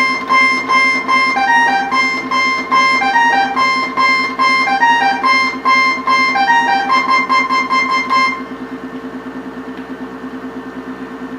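Roland D-50 synthesizer playing a melody of quick, repeated plucky notes on a user-edited lead patch, over a low held note that pulses steadily. The melody stops about eight seconds in, leaving the pulsing held note.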